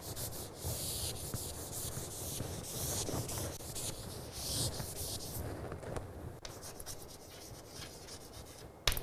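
A chalkboard eraser wiping a chalkboard in long rubbing strokes for the first five seconds or so. Then chalk writing on the board: short scratchy strokes and taps, with one sharp tap near the end.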